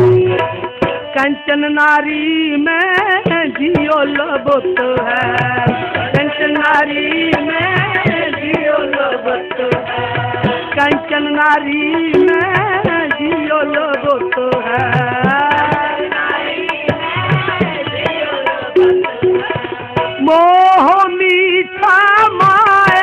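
Sikh kirtan music: tabla playing under a wavering melody line, with a steady held drone beneath.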